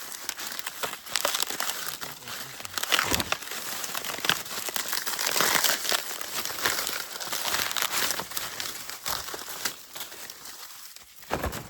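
Dry maize leaves and husks rustling and crackling as they are brushed and handled, a dense run of small crackles throughout.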